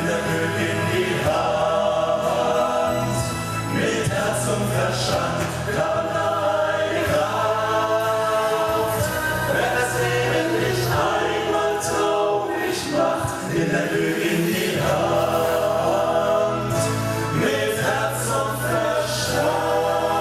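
Male vocal group singing in close harmony through microphones, with long held chords over a steady low accompaniment.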